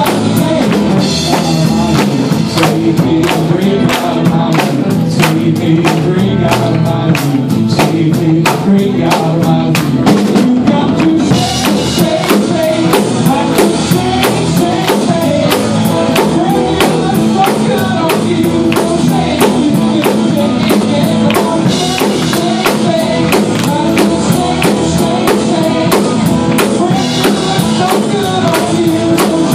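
Live band playing an upbeat pop-rock song: a man singing lead over guitars and a drum kit keeping a steady beat.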